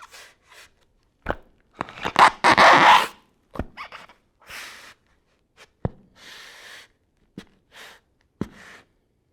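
Shoes scuffing and scraping along the floor in an irregular shuffle, with sharp footfall knocks in between. The longest, loudest scrape comes about two to three seconds in.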